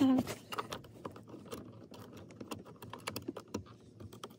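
Scattered small plastic clicks and taps as the under-dash fuse box and its clips are handled and snapped back into place. A brief sound from a voice right at the start is the loudest moment.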